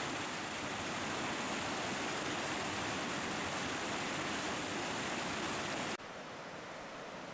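Creek water rushing, a steady even hiss. About six seconds in it cuts abruptly to a quieter, duller rush.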